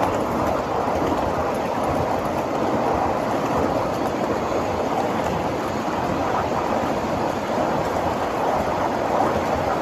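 Steady rolling noise of a 7.5-inch gauge ride-on train's wheels running on the rails, heard from aboard one of its cars.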